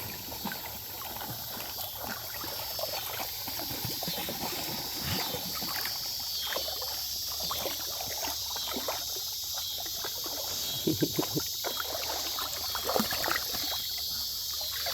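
Shallow creek water splashing and trickling as hands dig among stones to pull a freshwater mussel from the creek bed, with scattered small knocks and clicks of stones and shell. A steady high hiss sits beneath it throughout.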